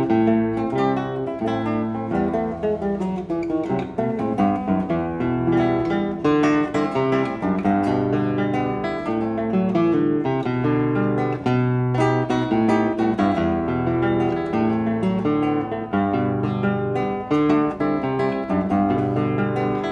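Solo nylon-string classical guitar playing a choro in E minor: a fingerpicked melody over a moving bass line.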